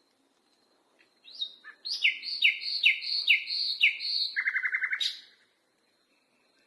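Nightingale singing one song phrase: a rising opening note, then five clear down-slurred notes about two a second, ending in a fast trill of about eight notes and a short sharp note.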